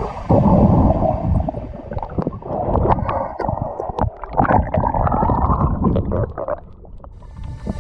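Muffled gurgling and bubbling of water heard from a camera held underwater, with irregular clicks and knocks and the high end dulled.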